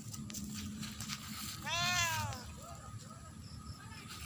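A cat meows once about two seconds in, a long call that rises and falls in pitch, followed by two faint short calls.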